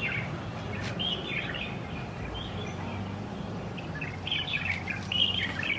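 Birds singing: bursts of warbling chirps, busiest over the last second and a half, over a low steady hum.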